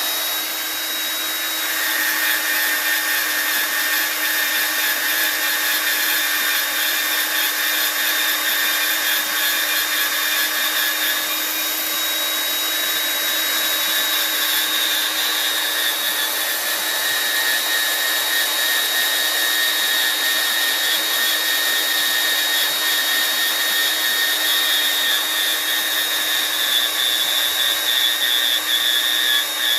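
Klutch horizontal metal-cutting bandsaw running steadily, its blade cutting through 1.5 by 2 inch rectangular tubing with 1/8 inch wall. The sound is a steady high whine over a hiss.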